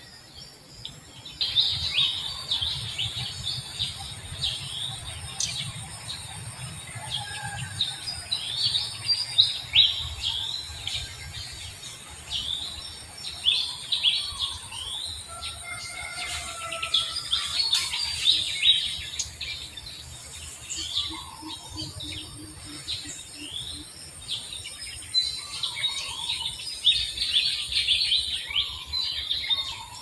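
A dense chorus of small birds chirping and twittering without pause, with a steady high insect whine behind it.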